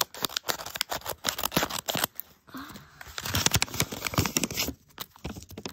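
Scissors snipping through the paper of a homemade paper blind bag, a quick run of sharp clicks for about two seconds, then the paper crinkling and rustling as the cut bag is pulled open.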